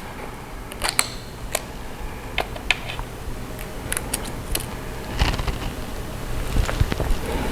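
Scattered small plastic clicks and taps from the keyboard's ribbon-cable connectors and flex cables being worked free inside a laptop, then denser rustling and handling noise from about five seconds in.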